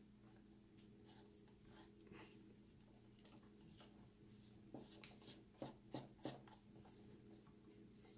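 Near silence with faint rubbing and a handful of light clicks, clustered about five to six seconds in, from hands handling the white plastic Reolink Go camera and fitting it to its mounting bracket. A low steady hum lies underneath.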